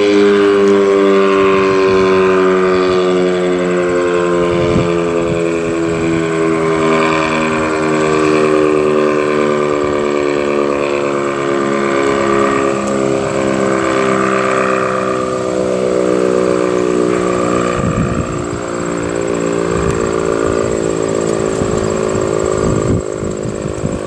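ACA Banshee outdoor warning siren winding down, its tone falling slowly and steadily, with a few low knocks near the middle and end.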